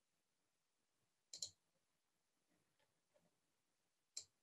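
Computer mouse clicks against near silence: a quick double click about a second and a half in, and a single click near the end.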